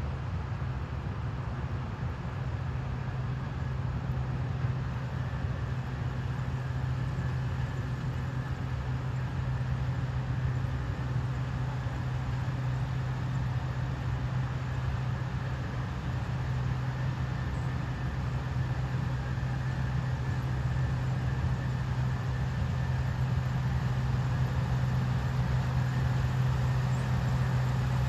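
Farm harvesting machine cutting corn: a steady engine drone with a strong low hum, slowly growing louder.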